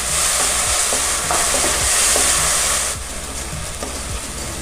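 Chopped onion, capsicum and chilli in a sauce-coated mix sizzling in hot oil in a kadai, stirred and scraped with a wooden spatula. The sizzle is louder for about the first three seconds, then drops a little.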